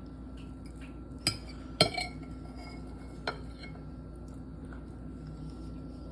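Cutlery clinking against a plate: three sharp clinks, two close together a little over a second in, the second of them the loudest, and a fainter one about three seconds in.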